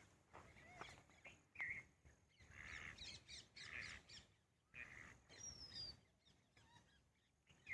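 Faint calls of several wild birds: scattered chirps, bursts of harsh chattering calls a few seconds in, and a thin falling whistle about five and a half seconds in.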